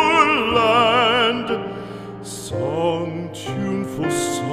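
Background music from a slow classical-style song: a singer holds a note with wide vibrato, then the accompaniment carries on alone.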